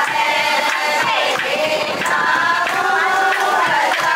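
A group of voices singing together, several pitches overlapping in one continuous song.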